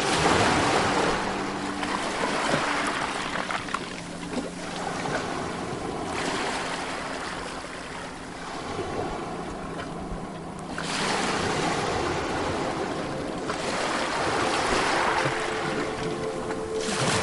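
Sea waves breaking on a beach: a rush of surf that swells and fades, with a fresh wave breaking every few seconds.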